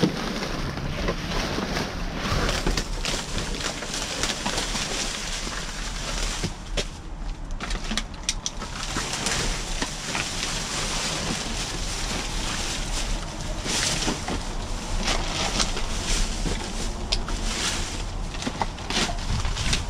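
Plastic trash bags crinkling and rustling as they are pulled open and rummaged through with a reacher-grabber tool, with many small crackles and clicks.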